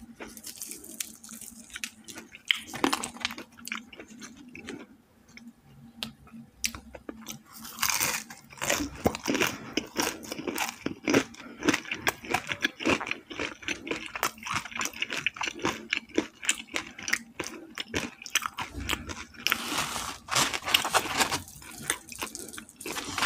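Close-up eating sounds of crispy fried chicken: crunching bites and wet chewing. The crisp breading crackles as pieces are pulled apart by hand near the start and near the end.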